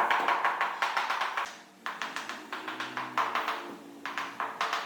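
Ceramic floor tile being tapped down into its mortar bed with a mallet: three quick runs of sharp taps with short pauses between them.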